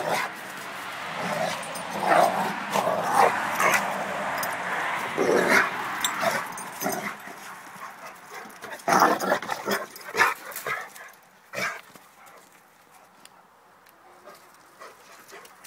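A pit bull and a bandog playing rough, with dog noises such as whines and growls. The sound is busiest in the first seven seconds, has a loud burst about nine seconds in, and turns quieter after about twelve seconds.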